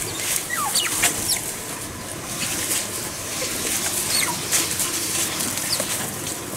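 Asian small-clawed otters giving short, high squeaky chirps, several close together in the first second and a half and a few more later, over the rustling of dry grass and leaves as they tug at a clump of straw.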